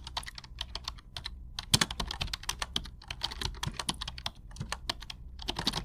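Rapid, irregular clicking and tapping of small hard objects, several clicks a second with brief pauses, over a low steady hum.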